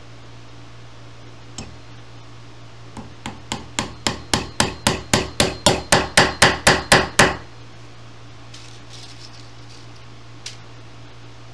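Upholstery tack hammer driving tacks through webbing into an oak chair seat rail. A single tap comes first, then a quick run of about seventeen blows, roughly four a second, growing louder, and one more tap near the end.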